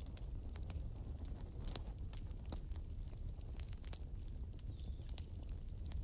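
Campfire of burning wood embers crackling: irregular sharp pops and snaps, some louder than others, over a low steady rumble.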